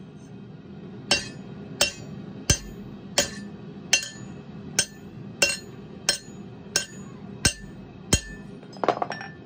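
Hand hammer striking a quenched mystery-steel scrap on an anvil in a quench break test, trying to snap the hardened piece: eleven ringing metallic blows about two-thirds of a second apart, then a short clatter near the end.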